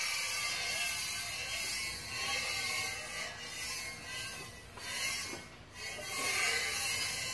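Heavy cast iron lapping plate being pushed back and forth over a granite surface plate: a steady rasping rub that swells and fades with each stroke and drops off briefly about five seconds in. The lapping is picking up the granite plate's high spots and leaving its low spots untouched.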